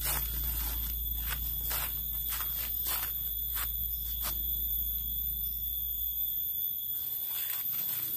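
Footsteps crunching through dry leaf litter, about two steps a second, stopping about four seconds in, over a steady high-pitched drone of forest insects.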